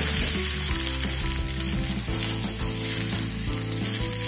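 An egg omelette sizzling steadily as it fries in a pan, with a slotted plastic spatula scraping and pushing it about.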